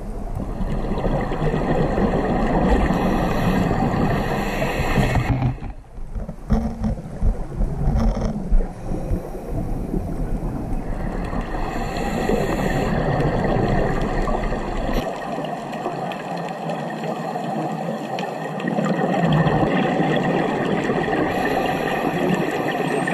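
Underwater sound picked up by a diver's camera: a steady rush and hum like distant boat motors carried through the water, broken by gurgling bursts of bubbles from about six to eleven seconds in.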